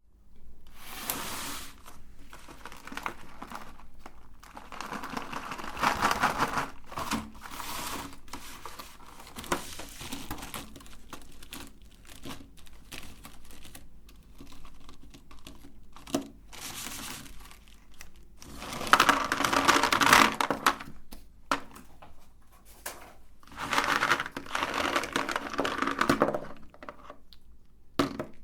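Candy wrappers crinkling and rustling in irregular bursts as wrapped pralines are handled and unwrapped.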